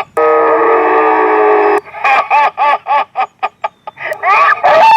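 Electronic ghost-sound car horn playing a recorded Mak Lampir witch's cackle through its horn loudspeaker: a held shrill note, then a rapid cackling laugh of about four syllables a second, then a long falling wail near the end.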